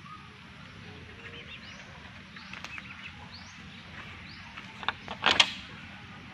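Birds chirping with short, repeated high calls about once a second, and a few sharp knocks about five seconds in, the loudest sound.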